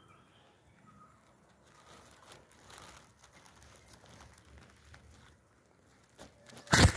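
Rustling and crackling of conifer branches and needles brushed close to the microphone, with a few faint bird chirps near the start. A loud sudden thump, the loudest sound, comes just before the end.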